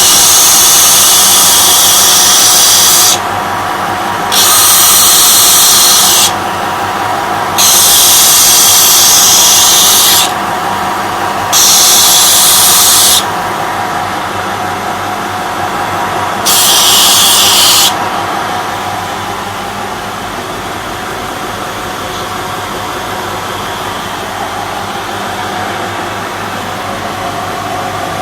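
Homemade belt grinder with a 250 W motor running steadily, with five loud hissing stretches of one to three seconds each as something is ground against the sanding belt. For the last third only the motor and belt run.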